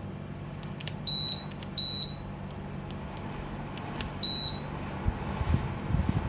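Samsung mini-split air conditioner's indoor unit beeping three times, short high-pitched beeps, the first two close together and the third about two seconds later, with a few light clicks around them. A steady low hum of the unit running sits underneath, and some low thumps come near the end.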